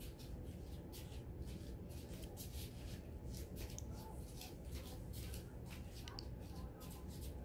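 Faint, irregular soft rustles and light taps, two or three a second, over a low steady room noise.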